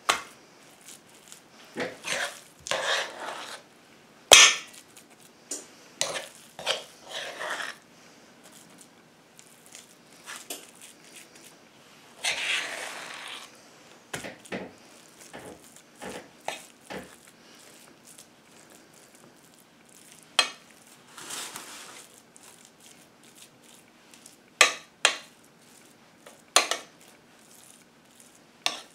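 A utensil scraping and knocking against a frying pan as cornbread dressing is spooned in and spread: scattered sharp clinks with a few longer scrapes.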